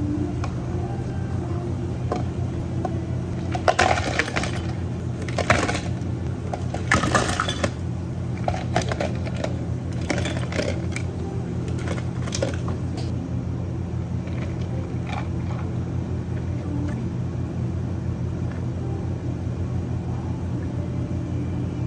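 Cups, glassware and utensils clinking and knocking as a drink is made, a dozen or so sharp strikes over about ten seconds, then stopping. Underneath, a steady low hum of cafe equipment runs throughout.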